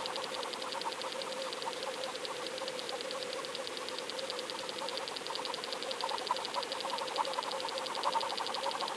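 Underwater sound picked up by a fishing camera towed on the line: a rapid, even mechanical ticking over a steady hum, a little stronger near the end.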